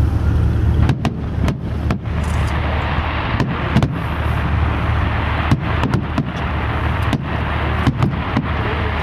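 Fireworks going off in a dozen or so sharp bangs, irregularly spaced and some in quick pairs, over a steady low rumble.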